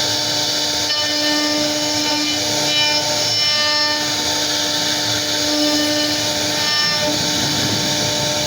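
CNC router cutting wood: the spindle whines steadily over the noise of the bit carving, with tones that shift every second or two as the machine moves.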